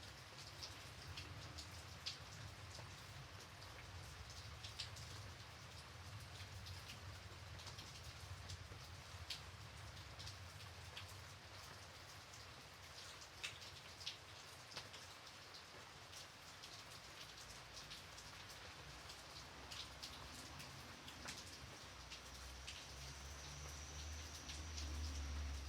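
Gentle rain: a soft, even patter with many individual drops ticking sharply and irregularly on a surface. A low rumble swells near the end.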